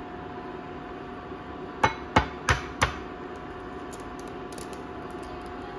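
An egg tapped four times in quick succession against the rim of a glass bowl to crack its shell.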